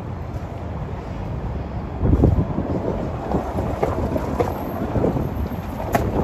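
Wind buffeting the microphone over a steady low rumble, louder about two seconds in, with a few faint knocks and a sharp click near the end.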